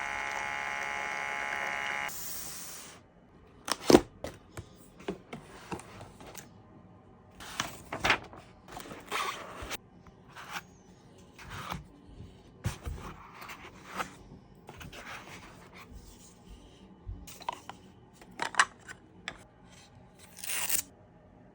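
Packaging being unboxed by hand: rustling and tearing, with scattered sharp clicks and knocks. A short steady tone plays for the first two seconds.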